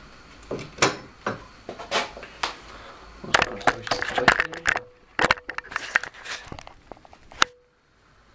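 Metal tools and workpieces being handled on a workbench: a run of sharp knocks and clanks, a few ringing briefly. They come thickest in the middle and stop about a second before the end.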